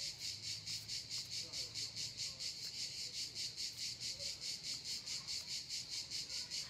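Cicadas singing in a fast, even pulse of about five beats a second, a high-pitched rhythmic chirring that keeps going without a break.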